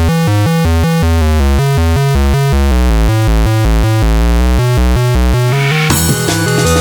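Electronic music: a fast run of loud synthesizer notes stepping up and down in pitch over a heavy bass, then about six seconds in a cymbal crash and a drum-and-bass beat kick in.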